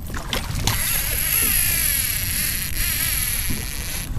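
Baitcasting reel whining steadily for about three seconds, starting a little under a second in, as line is worked against a hooked leopard shark on a bent rod.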